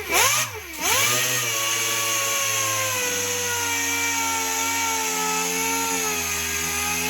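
A hand-held power sanding or grinding tool spinning up with a few quick trigger blips, then running steadily at high speed for about six seconds, and winding down near the end.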